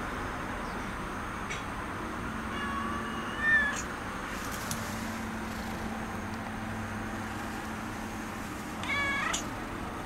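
Tabby cat meowing twice: a longer meow about three seconds in that rises in pitch at its end, and a shorter one near the end.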